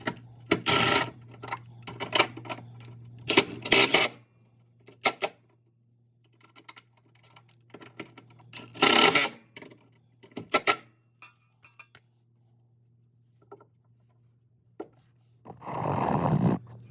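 Metal exhaust pipe sections and hangers clanking and clinking as they are handled and fitted: a cluster of sharp knocks over the first four seconds with a low steady hum beneath, a few scattered knocks later, and about a second of scraping near the end.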